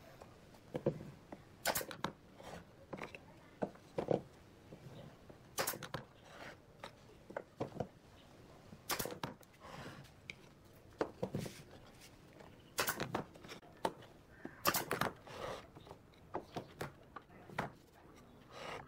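Wooden slats knocking and clattering as they are picked up, stood on end and set against a round wooden base on a wooden workbench: irregular taps and knocks, a few of them sharper.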